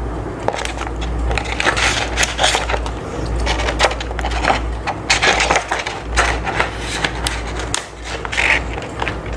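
Clear plastic transparency sheet crinkling and rustling as it is bent and pushed onto the pegs of a 3D-printed plastic face-shield frame, with many small plastic clicks and scrapes, over a steady low hum.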